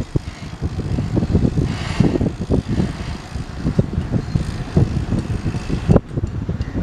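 Wind buffeting the microphone outdoors: an uneven low rumble with irregular gusts that rise and fall.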